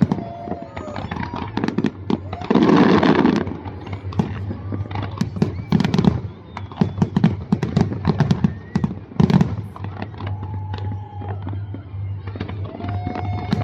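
A large fireworks display: rapid, overlapping bangs and crackles of aerial shells bursting, with one heavier, longer blast about three seconds in.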